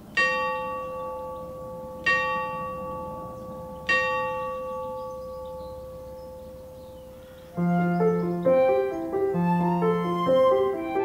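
A clock bell strikes three times, about two seconds apart, each stroke ringing on and slowly fading. Gentle piano music starts about seven and a half seconds in.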